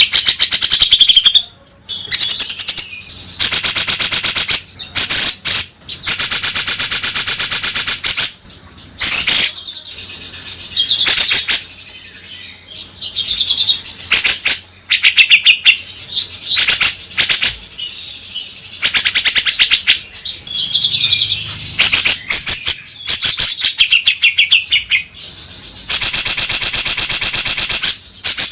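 Grey-cheeked bulbul (cucak jenggot) calling loudly: long bursts of very fast, harsh chattering lasting a second or two each, alternating with shorter whistled phrases.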